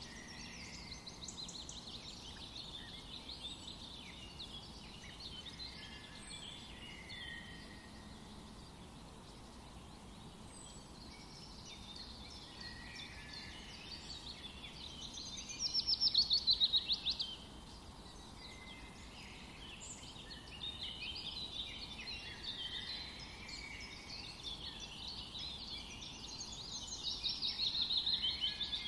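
Several birds chirping and singing, with a louder rapid trill about halfway through and another near the end.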